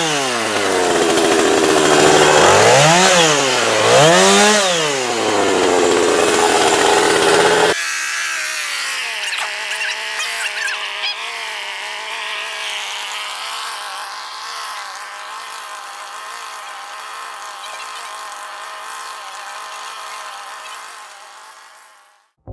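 Husqvarna two-stroke chainsaw running, its engine note dropping and climbing twice as the throttle eases and opens again. After about eight seconds it turns thinner and quieter, running more steadily, and it fades out near the end.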